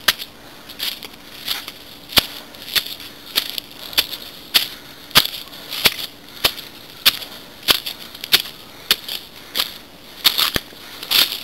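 Footsteps climbing stone steps, each a short crunching scuff of shoes on gritty stone and dry leaves, in a steady rhythm of a little under two steps a second.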